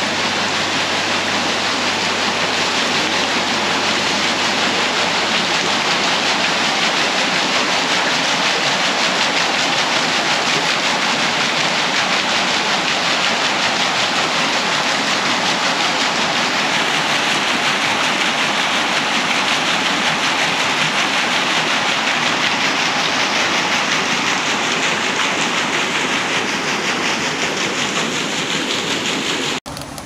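Waterfall rushing in a loud, steady wash of water noise that cuts off abruptly near the end.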